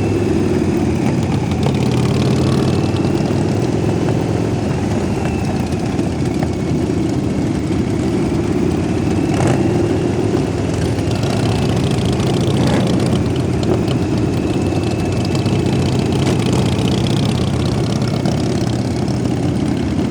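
Many motorcycle engines running together at low speed, a steady deep rumble.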